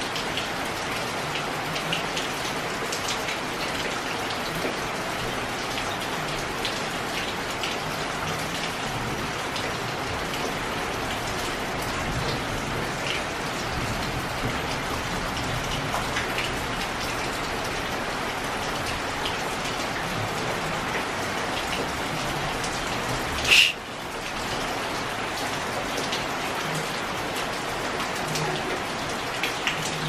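Steady heavy rain with water dripping off a corrugated metal roof edge, many small drip ticks scattered through the hiss. About three-quarters of the way through there is one brief, much louder sharp sound, and the rain dips for a moment after it.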